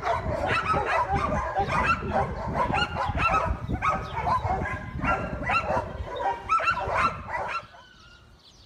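Several dogs barking and yelping over one another in a continuous, loud chorus, which breaks off suddenly near the end.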